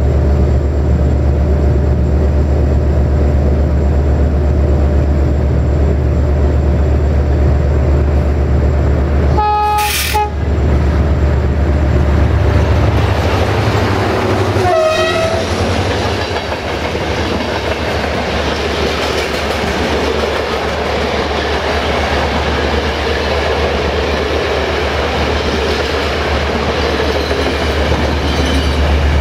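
Approaching diesel-hauled passenger train sounding its horn in a short blast about ten seconds in, then again as the locomotive passes, the pitch dropping as it goes by. The coaches then rush past over the rails with a clickety-clack, over a steady low engine drone.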